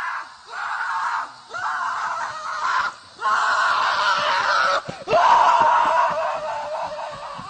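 Screaming: a run of about five long screams with short breaks between them, the last and longest one trailing off near the end.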